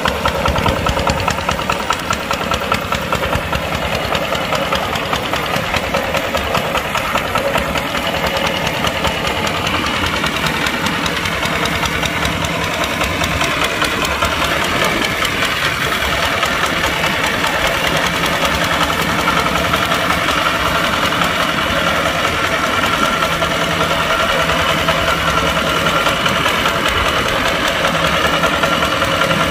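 Kubota tractor's diesel engine running steadily, pulling a plough.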